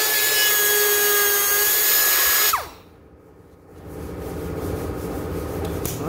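Power grinder running steadily at full speed with a high whine, switched off about two and a half seconds in, its pitch falling as it winds down. A quieter, lower, rough noise follows near the end.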